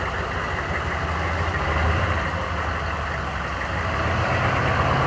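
Chevrolet Suburban's turbo diesel engine pulling slowly uphill under load, heard from inside the cab with steady road and wind noise. About four seconds in, the engine note rises and gets a little louder. The truck feels sluggish, which the driver thinks a performance chip would cure.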